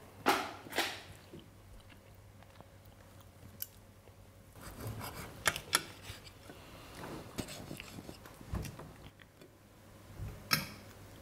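Cutlery clinking on dinner plates, with chewing of food between. The sharp clinks come scattered, the loudest near the start and near the end.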